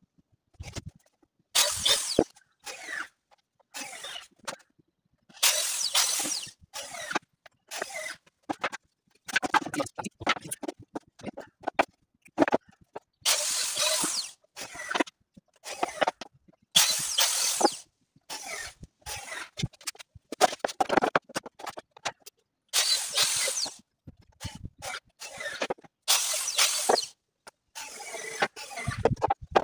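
Irregular scraping and knocking from loose pine planks being handled and slid across a wooden plank frame, in short bursts with brief pauses between them.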